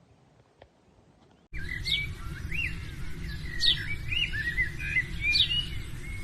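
Small birds chirping and singing in quick, sweeping notes over a steady low rumble, both starting abruptly about a second and a half in.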